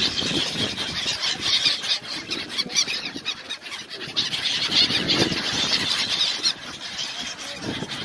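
A large flock of gulls calling continuously, many short high-pitched cries overlapping.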